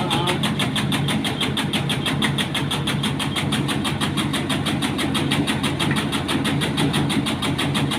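Motorised tobacco cutting machine running steadily, its engine giving a low hum with a rapid, even pulse.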